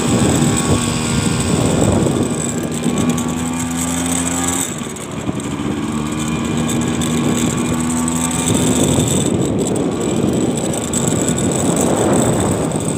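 Motorcycle engine running steadily under way, under heavy wind buffeting on the microphone; the engine sound dips briefly about five seconds in and then picks up again.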